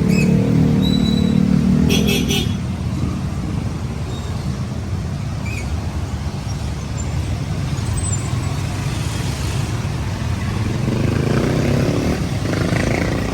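Street traffic: a motor vehicle's engine runs loudly close by, then drops away about two and a half seconds in, leaving a steady traffic rumble, and another vehicle comes up louder near the end.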